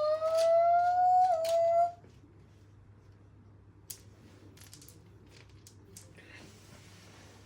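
A dog whining: one long whine rising in pitch, with a small break near the end, that stops about two seconds in. Then a few faint clicks.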